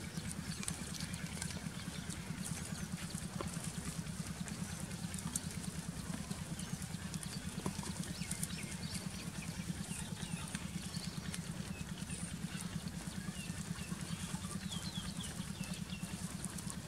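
A steady, low, rapidly pulsing throb of an engine running, with faint small-bird chirps over it.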